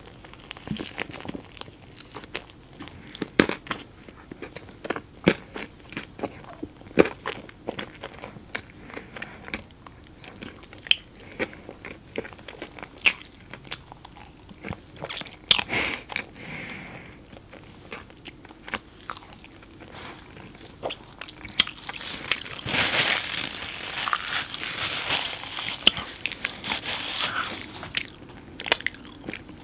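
Close-miked eating sounds: chewing a mouthful of chocolate cake with candy-coated chocolates, with many sharp crunches throughout. A denser, louder run of crunching and mouth sounds comes about 22 seconds in.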